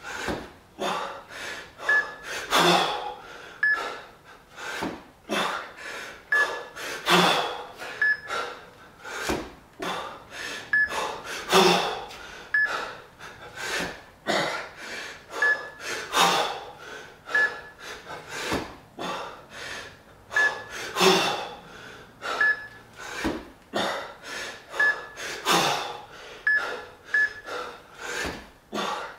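Hard, rhythmic breathing of a man jerking two 20 kg kettlebells overhead, with a loud forceful gasp about every four and a half seconds, one per rep, and quicker breaths in between. Short high electronic beeps sound every second or two.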